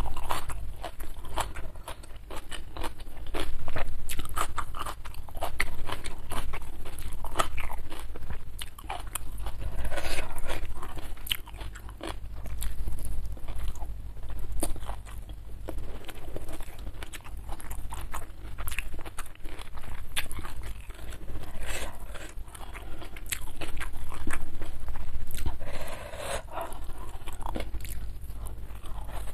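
Close-miked chewing and crunching of a mouthful of rice and raw vegetables, with crisp bites coming in clusters every couple of seconds.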